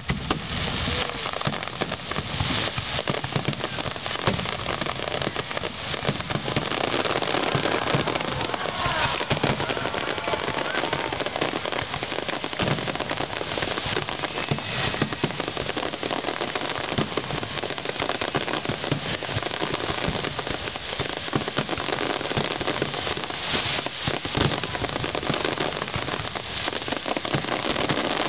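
Fireworks display: many aerial shells bursting at once, their small pops overlapping into a dense, continuous crackle.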